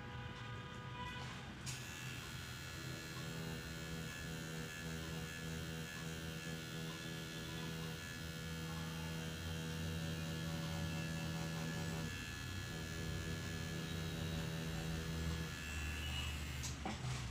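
Coil tattoo machine buzzing steadily while its needle lines lettering into artificial practice skin. It switches on with a click about two seconds in, dips briefly about twelve seconds in, and stops near the end.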